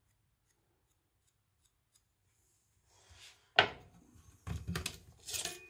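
Near silence for about three seconds, then one sharp knock and a few clicks and rubbing sounds of tools being handled.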